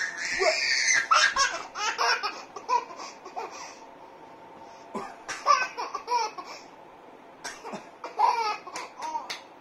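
A baby laughing in repeated bursts of giggles, the first spell starting with a high squeal, with two short pauses between spells.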